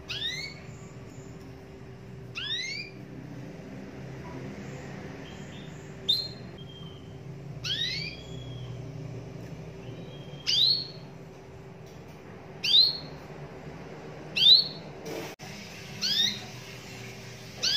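Domestic canary giving short, sharply rising chirp calls, one about every two seconds, nine in all, over a faint steady hum.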